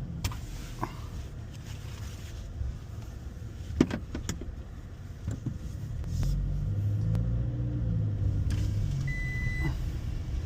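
Car engine idling with a low, steady rumble, broken by a few clicks and knocks, the loudest a sharp knock about four seconds in. A short high beep sounds near the end.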